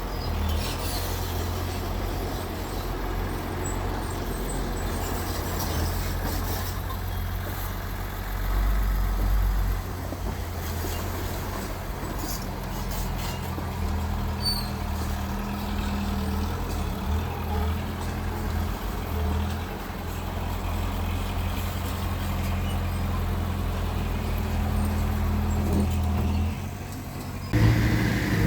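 Heavy diesel earthmoving machinery engine running with a steady low drone, with a few faint knocks. Near the end it dips briefly, then comes back louder.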